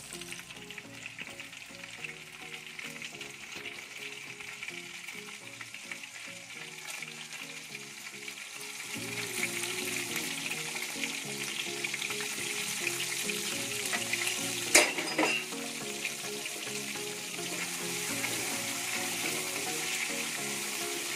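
Oil sizzling in a kadhai. About nine seconds in, sliced tomatoes go into the hot oil and the frying sizzle grows louder, then a wooden spatula stirs them, with one sharp knock about two-thirds of the way through. Background music plays underneath.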